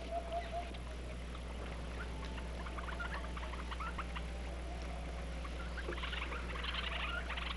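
Steady hum and hiss of an old film soundtrack, with faint, short high squeaks and chirps from animals scattered through it and a brief wavering call right at the start.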